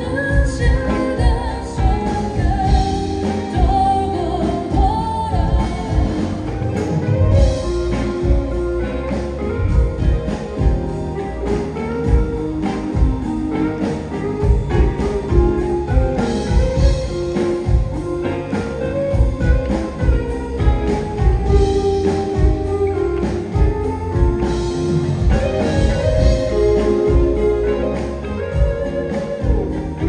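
Live band music: a Telecaster-style electric guitar and drums playing a rock song, with a sung vocal line near the start giving way to an instrumental passage.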